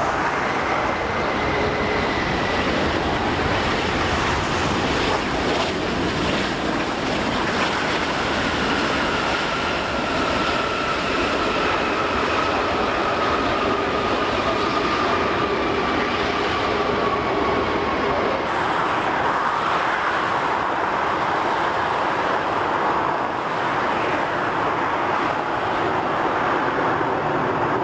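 Jet engines of an Airbus A380 rolling out after touchdown: a loud, steady rush of engine noise with a whine that falls slowly in pitch. About two-thirds of the way in the sound changes as the lowest rumble drops away, and the noise of another A380's engines on approach follows.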